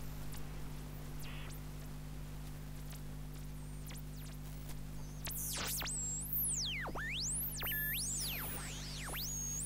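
Homebrew N1TEV regenerative shortwave receiver being tuned: a steady low hum and hiss from its speaker, then from about five seconds in, high whistles that sweep up and down in pitch as the tuning passes over station carriers, the heterodyne squeals of a regenerative detector.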